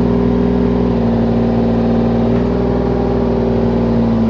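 Heavy-equipment engine running at a steady speed, an even mechanical hum with no change in pitch.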